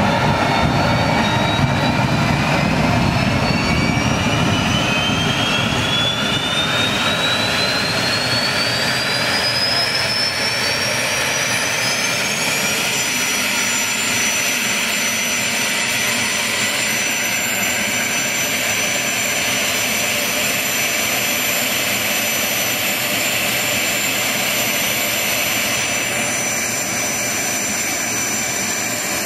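Small gas turbine engine running: its high whine climbs steadily as it spools up for about the first half, then holds at a steady high pitch over a rushing roar of exhaust and intake.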